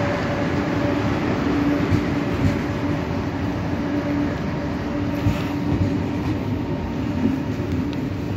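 KTX-Sancheon high-speed train pulling out of the station alongside the platform: a steady rumble of wheels and running gear with a steady low hum, and a few light clicks.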